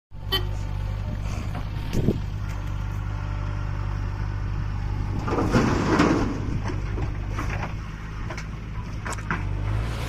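JCB 3DX backhoe loader's diesel engine running steadily under work, with a few metallic clanks from the backhoe arm. About five and a half seconds in, a bucketful of soil pours into a tractor trailer with a rushing clatter for about a second.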